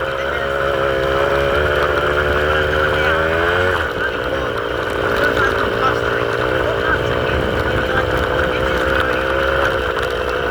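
Farm motorbike engine running under way, its pitch wavering with the throttle. The revs drop at about four seconds in, then run on lower and less evenly.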